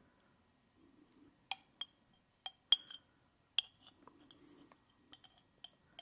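Utensil clinking against glassware, several sharp clicks with a brief ring around the middle, then fainter taps. Soft chewing can be heard in between.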